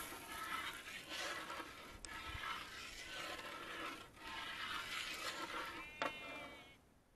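Long metal spatula scraping and swishing through sugar-and-water syrup in a black iron kadai, stroke after stroke, as the sugar is stirred to dissolve over a wood fire. About six seconds in there is a brief, pitched animal call.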